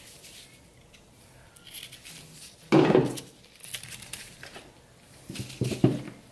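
A 4L80E transmission pump is handled on a workbench while the old pump-to-case O-ring is worked off, giving light rubbing and clatter. There is one loud knock about three seconds in and a few more knocks near the end.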